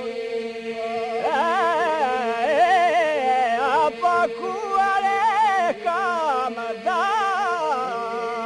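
Background music: a steady drone with a wavering, heavily ornamented melody line over it, coming in about a second in.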